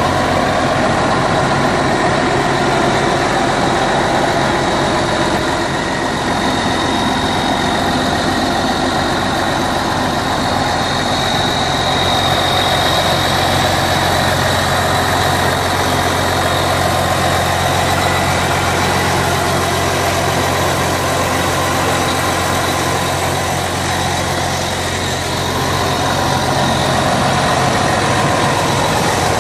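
Case IH Magnum 305 tractor's six-cylinder diesel idling steadily.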